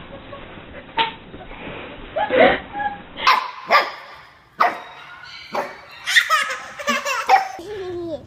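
A husky puppy gives a string of short, sharp yaps, and a baby laughs back at it in bouncing giggles that grow more frequent towards the end.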